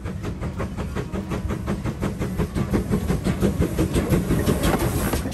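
Steam locomotive No. 5542, a GWR small prairie tank, running towards and over the microphone. A rapid, even run of beats sits over a heavy rumble and gets louder, loudest as the engine passes overhead about four seconds in.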